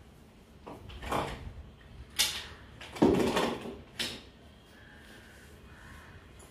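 Household objects being handled and set down on a desk top: a handful of short knocks and clatters over the first four seconds, the loudest about three seconds in.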